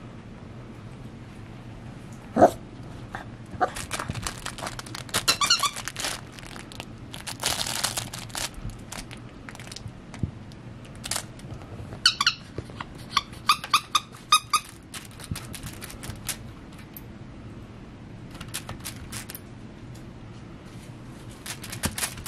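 Six-week-old beagle puppy at play among plush toys: clusters of short high squeaks, a few a second, about five seconds in and again from about twelve to fifteen seconds in, with rustling and a few sharp clicks, the loudest near the start.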